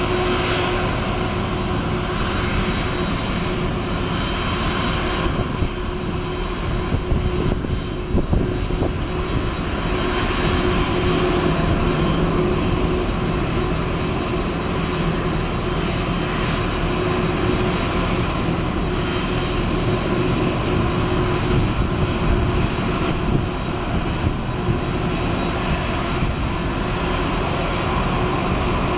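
Boeing 767-300ER's two General Electric CF6 turbofan engines running as the airliner taxis away under its own power: steady loud jet noise with constant whining tones held over it.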